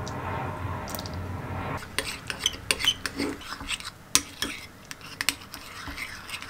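Metal spoon stirring a thick mayonnaise and barbecue sauce in a ceramic bowl, clinking and scraping against the bowl in a quick, irregular run of clicks. The clicks start about two seconds in, after a low steady hum.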